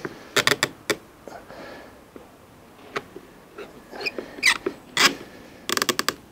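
Hand screwdriver turning a screw through a steel bracket into the wooden frame of a bench seat, giving short, irregular squeaks and scrapes, with a quick run of squeals near the end.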